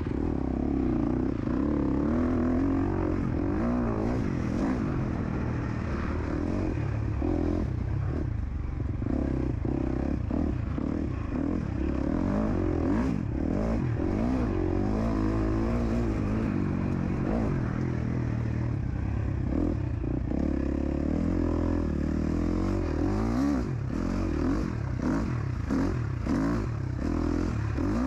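KTM 250 SX-F dirt bike's single-cylinder four-stroke engine at racing speed, its pitch rising and falling again and again as the throttle is opened and closed, with frequent knocks and rattles over the rough track.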